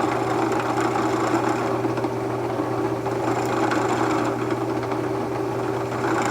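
Electric drill running steadily at constant speed, boring small pilot holes into solid oak.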